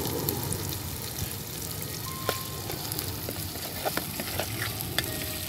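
Sliced onions and green chillies sizzling in oil in a metal pot while a metal spatula stirs them, with a few sharp clicks.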